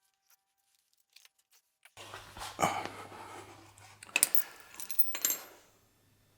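Metal tools and hardware clinking and rattling in irregular bursts, with three louder clinks. There is a low steady hum under them.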